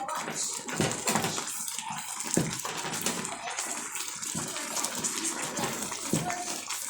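Pot of water boiling, a steady bubbling broken by scattered light knocks.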